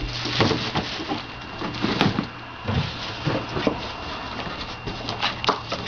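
Cardboard shoeboxes being pulled from a stack and handled: a run of irregular knocks, scrapes and rustles.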